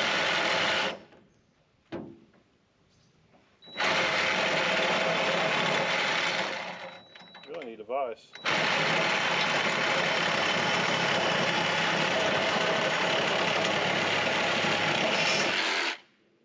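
Power saw cutting through a deer feeder's leg to shorten it, running in three loud stretches with short pauses between, the last about seven seconds long. A short wavering squeal comes just before the last stretch.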